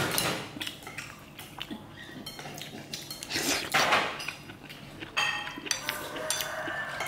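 Metal utensils clinking, knocking and scraping against a pan and dishes in irregular strokes, with a louder rushing scrape about halfway through.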